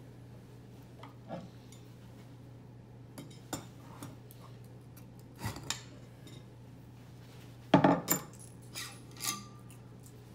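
Metal clinks and knocks as the cylinder of a two-cylinder jet ski engine is worked loose and lifted off its studs, with the loudest clank about 8 seconds in.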